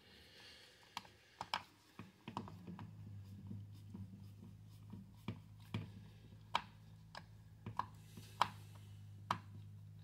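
Screwdriver backing T20 Torx screws out of a Stihl backpack blower's plastic throttle handle: irregular small clicks and scrapes of the bit turning in the screw heads. A low steady hum runs underneath.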